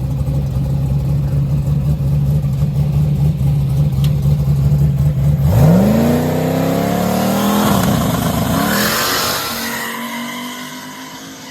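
Drag race car engine held at a steady high rev on the starting line, then launching about five and a half seconds in. Its pitch climbs fast as it accelerates, dips and climbs again near eight seconds as it shifts, and then the sound fades as the car pulls away down the track.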